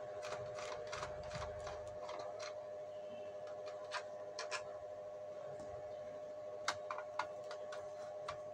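Scattered sharp plastic clicks and light scraping as a screwdriver and hands work the plastic casing of a Mitsubishi FX3U-80M PLC apart, most in the first couple of seconds and then a few at a time, over a steady background hum.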